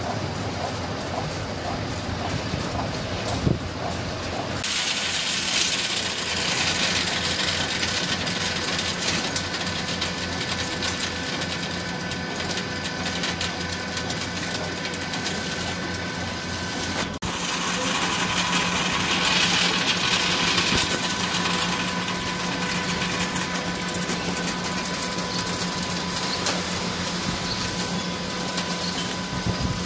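A continuous drum nut-roasting line with a fan-cooled conveyor belt running: a steady mechanical whir and hum with a constant motor whine. The mix changes abruptly twice, about four and a half seconds in and about seventeen seconds in.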